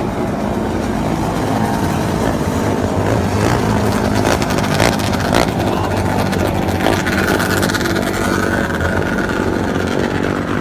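Engines of a pack of ice-racing machines running hard together around the oval. A higher engine whine climbs in pitch in the second half.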